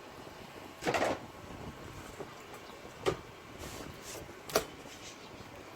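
Handling noises: a short scraping rustle about a second in, then two sharp clicks or knocks.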